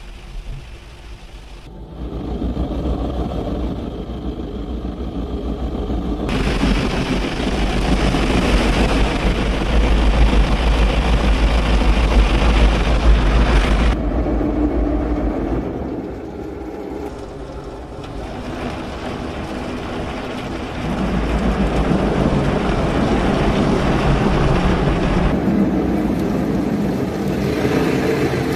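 Automatic rollover car wash working over the car, heard from inside the car: a loud, steady rush of water spray and machinery with a deep rumble. It swells a couple of seconds in, dips for a few seconds partway through, then rises again as the gantry moves.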